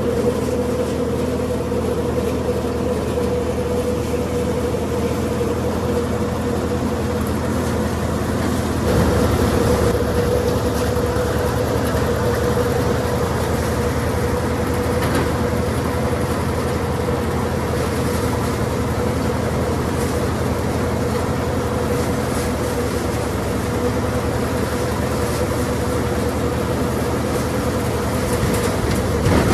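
Sonalika DI 42 RX tractor engine driving a Surjeet paddy thresher through its PTO: a steady machine hum with a constant whine from the spinning threshing drum as paddy is fed in. The sound grows a little louder about nine seconds in.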